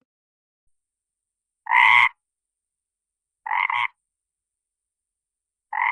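AI-generated sound effect of a deep frog croaking: three short croaks, about a second and a half to two seconds apart, the last one starting near the end.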